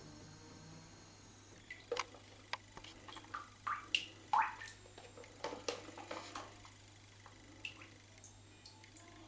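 Water dripping off a small wooden model boat into bathtub water, with light handling knocks as the hull is turned over. The drops and knocks come scattered between about two and seven seconds in, over a low steady hum.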